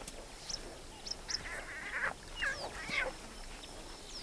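Very young lion cubs squealing and mewling in short, bending cries as they squabble among themselves, with a few short high chirps over them.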